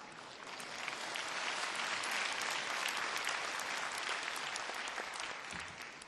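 A large audience applauding: the clapping swells about half a second in, holds, then dies away near the end.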